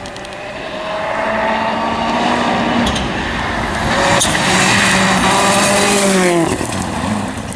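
Rally car engine accelerating hard, pitch climbing through a gear change, held at high revs, then dropping sharply as the car lifts off or passes.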